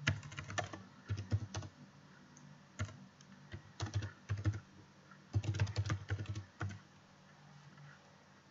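Typing on a computer keyboard: several short runs of keystrokes with pauses between, stopping a little after two-thirds of the way through.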